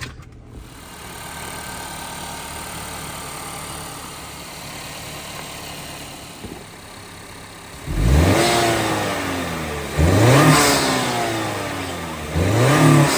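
Honda Accord 2.0T's turbocharged four-cylinder engine, fitted with a PRL high-volume cold-air intake, running steadily, then revved hard three times about two seconds apart, each rev rising quickly and falling back slowly.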